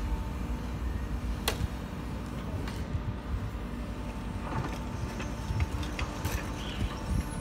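Engine of a small tracked excavator running steadily with a low hum, with a sharp click about a second and a half in and several short knocks and clunks in the second half.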